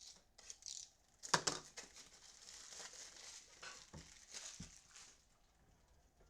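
Trading-card pack wrappers crinkling and tearing as packs are opened, with cards rustling. The loudest crackle comes about a second and a half in, followed by a few seconds of rustling.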